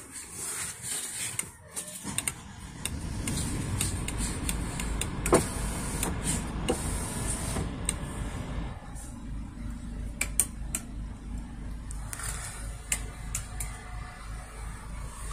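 Truck engine starting up about two seconds in and then running at idle as a steady low rumble, settling to a steadier idle about nine seconds in. A few sharp clicks sound over it.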